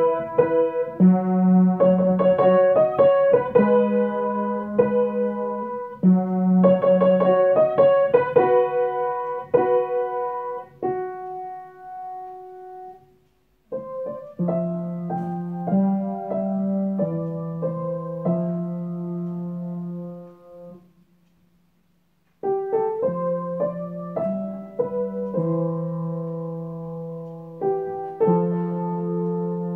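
Background piano music: sustained chords and single struck notes, stopping briefly twice before starting up again.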